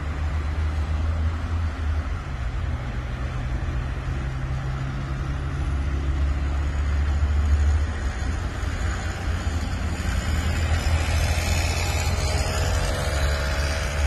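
City road traffic: cars and other vehicles passing through a roundabout, a steady low rumble with louder tyre and engine noise in the second half as vehicles pass closer.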